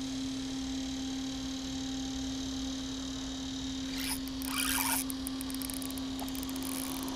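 A spinning rod and reel being grabbed and handled, a brief rustle about four seconds in, followed by a run of quick light clicks from the reel, over a steady low hum.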